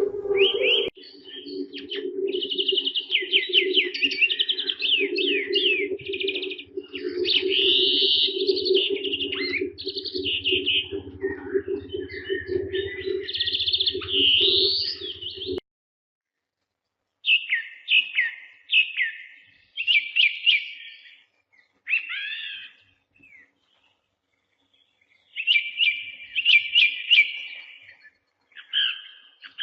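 Small songbirds chirping and trilling in quick runs. A steady low hum lies underneath for the first half and cuts off suddenly about halfway through. After that the chirps come alone, in short bursts with brief pauses.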